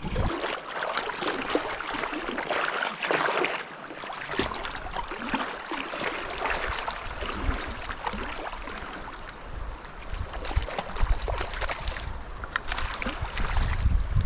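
River current rushing and splashing around a wading angler's legs, with wind buffeting the microphone in low gusts during the second half.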